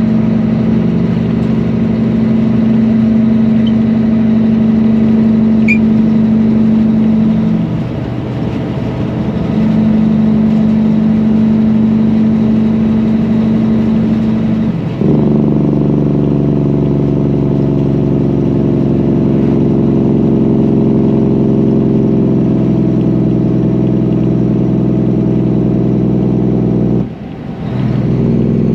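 Semi truck's diesel engine running steadily under way. The engine note drops away briefly about eight seconds in, settles at a different steady pitch about fifteen seconds in, and dips again near the end.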